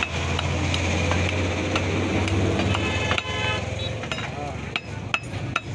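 Meat cleaver chopping beef on a wooden log chopping block: sharp knocks, roughly every half second at first, then sparser. Under them runs a steady low engine and traffic rumble, which fades about four seconds in.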